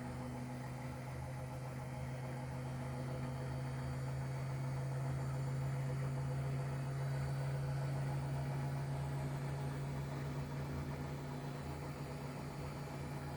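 Hotpoint Ariston AQ83D front-loading washing machine in its 800 rpm spin, the drum motor holding a steady low hum that swells slightly and eases a little near the end.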